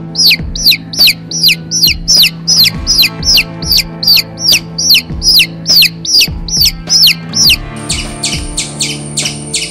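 Baby chicks peeping: a rapid run of loud, falling peeps, about three a second, over steady background music. About eight seconds in, the peeps give way to a run of sharp, high ticks at a similar pace.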